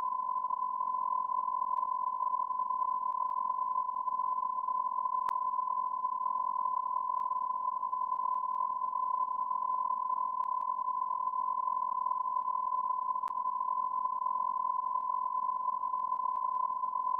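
A steady electronic beep tone, one unbroken high note held without a break, like a long censor bleep.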